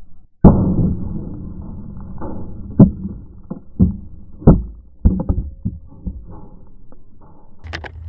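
A live .50 BMG cartridge going off inside a microwave: a single sudden, muffled bang about half a second in as the door is blown open, followed by a string of knocks and thuds over the next few seconds as the camera beside it is knocked over and tumbles.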